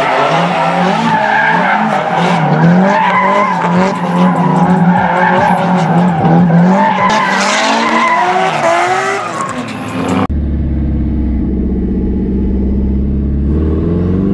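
Several drift cars' engines revving up and down while their tyres screech through a tandem slide. About ten seconds in this cuts to the steady drone of a Honda K24 four-cylinder in a swapped Mazda RX-8, heard from inside the cabin.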